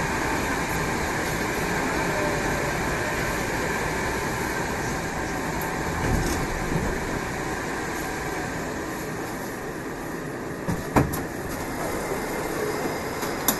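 Moscow Metro 81-765/766/767 'Moskva' train on the move, a steady rumble of running gear that eases slightly, with two or three sharp knocks about eleven seconds in.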